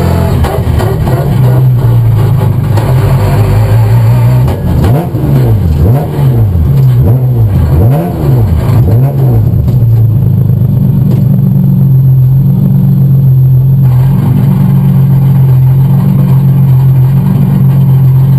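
BMW M3 hill-climb car's engine running loudly. About four seconds in, it revs up and down quickly about five times, then settles into a steady drone.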